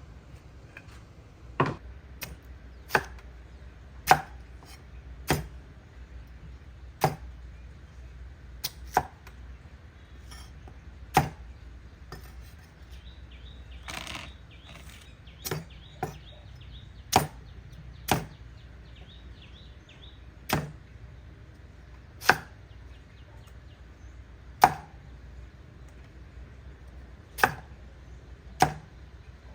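Slow chopping with a blade on a chopping block: about seventeen sharp single chops, one every one to two seconds at an uneven pace.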